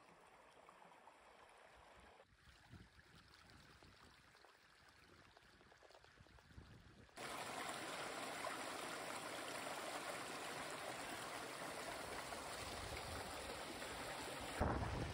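Shallow creek water rushing and splashing between boulders in a small cascade, a steady running-water sound. Faint at first, it becomes suddenly much louder and closer about seven seconds in.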